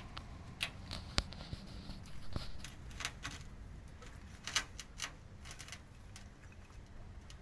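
Irregular light clicks and knocks, about a dozen, with the sharpest about a second in and another at about four and a half seconds.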